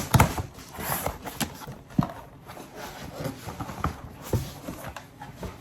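Irregular knocks and clicks with rustling as packaged items are handled and unwrapped.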